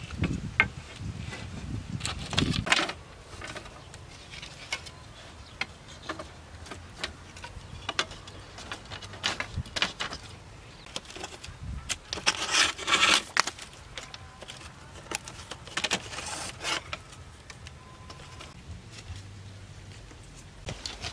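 Split bamboo slats clattering and scraping against each other and a wooden pole frame as they are laid across it by hand. The sounds come in scattered bursts, with louder clusters near the start, about twelve seconds in and about sixteen seconds in.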